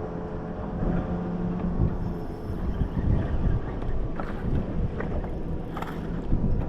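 Boat motor running with a steady hum, over low rumbling noise; a few light knocks near the end.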